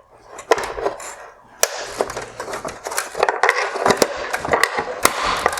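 Flathead screwdriver prying and scraping against the plastic of a headlight's projector mount, with many sharp clicks and knocks. The scraping grows busier from about a second and a half in.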